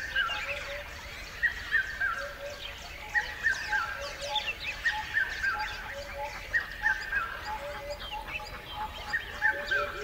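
Forest birds calling. One bird repeats a short falling phrase of two or three notes about every second and a half to two seconds, over lower repeated notes and many quick high chirps.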